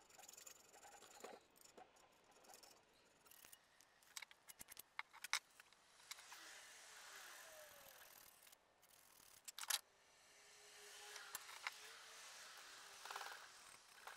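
Faint scraping and small clicks of thin copper strip being bent and shaped with a small hand tool against the jaws of a metal bench vise, with a few sharper metallic taps, the loudest about five seconds in and just under ten seconds in.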